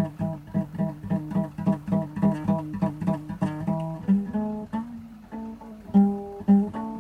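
Plucked string instrument playing an improvised blues: a quick run of picked notes, about four or five a second, that gives way about halfway through to fewer, longer-held notes.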